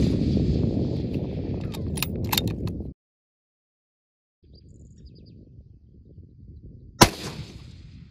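A single 6.5 Creedmoor rifle shot about seven seconds in, a sharp crack with a brief ring-out. Before it, a low rumbling noise with a few sharp clicks cuts off about three seconds in, followed by a short silence.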